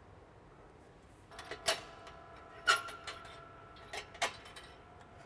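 A GEnx fuel manifold tube knocking and clinking against the engine's surrounding metal tubing as it is worked into position: about five sharp metallic knocks with a short ringing tone, starting about a second in, the loudest near the middle.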